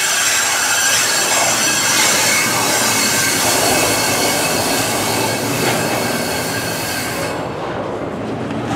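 Freight cars rolling past with their brakes applied, giving a long, steady, high-pitched squeal over the rumble of the wheels. The train is braking to slow for a switch. About seven seconds in the squeal drops away, leaving the rumble of the cars.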